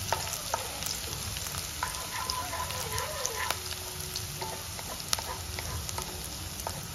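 Chopped green chillies and garlic sizzling in hot oil in a kadai as they are stirred, with scattered light clicks against the pan.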